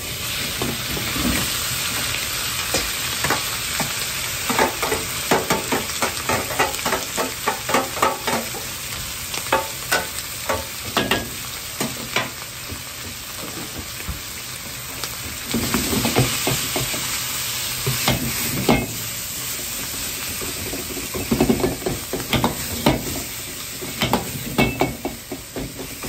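Ground pork sizzling in a hot wok, with a metal ladle repeatedly scraping and clinking against the wok as the meat is stirred and broken up.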